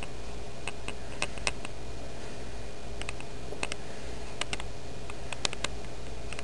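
Steady low hum and hiss with scattered light clicks, about a dozen, falling at irregular moments, the sharpest a little past five seconds in.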